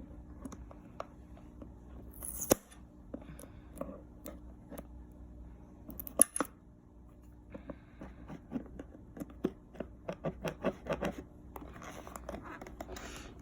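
Cardboard box and its packaging being opened by hand: scattered clicks, scratches and rustles, with two sharp snaps, one about two and a half seconds in and one about six seconds in, a quick run of clicks later and rustling near the end.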